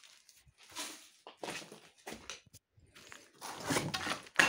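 Rustling and scraping of debris (wooden boards, paper and rubble) being handled and shifted, in a run of short noisy bursts, with a sharper, louder knock near the end.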